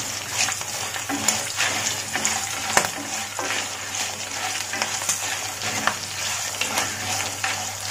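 A tempering of peanuts, dals, chillies and curry leaves sizzling in hot oil in a non-stick wok while a spatula stirs it, with scattered scrapes and clicks through the steady sizzle.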